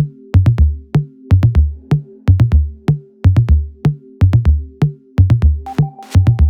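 Electronic background music: a heavy drum-machine kick beat over held synth notes, with a higher note and hi-hat-like strokes joining near the end.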